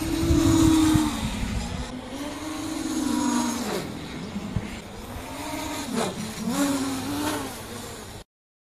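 High-revving motors whining, the pitch swinging up and down repeatedly as if throttled hard, loudest in the first second and cutting off suddenly near the end.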